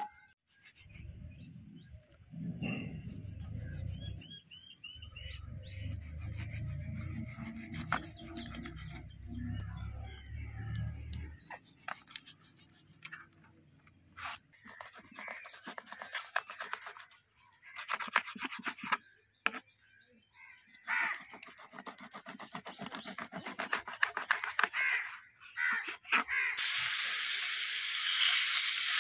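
A knife scraping and cutting fish on a board in quick rough strokes, after a low rumble with birds chirping faintly. Near the end, oil starts sizzling loudly as fish slices fry in a pan.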